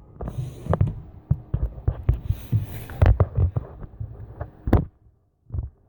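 Irregular soft thumps, knocks and rustling close to the microphone, with a brief drop to near silence near the end.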